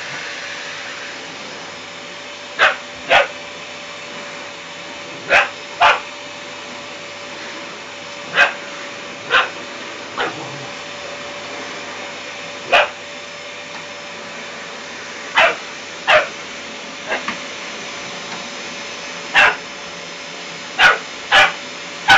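A vacuum cleaner runs with a steady drone while a Rottweiler puppy barks at it over and over: a dozen or more short, high barks, often two in quick succession, every second or few.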